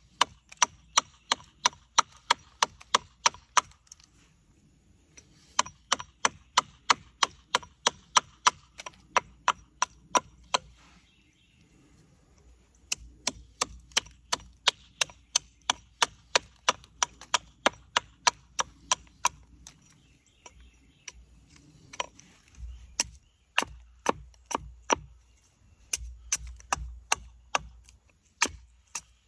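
Quick, sharp chopping strikes on walnut wood, about three a second in runs broken by short pauses: a hatchet hewing a walnut spoon blank.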